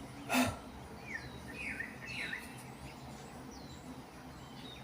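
Small birds chirping, a few short, quick down-and-up chirps spread over several seconds. A brief noisy sound about half a second in is the loudest thing heard.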